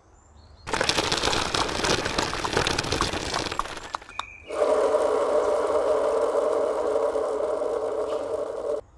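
A rattling noise for a few seconds, then a steady mechanical hum holding a few tones from about halfway in, which cuts off suddenly just before the end.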